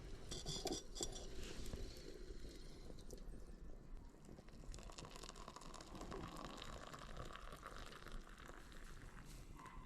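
Faint crackling and small pops from a wood fire burning in a hibachi, irregular clicks over a low background hiss.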